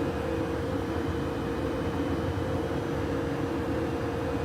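Steady hum of running factory machinery: a constant mid-pitched tone over an even rushing noise.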